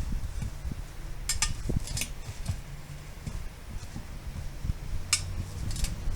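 Sharp metallic clinks from tyre-changing hand tools striking the steel wheel, in a few clusters, over low thumps and handling noise while the tyre is worked on and off the rim by hand.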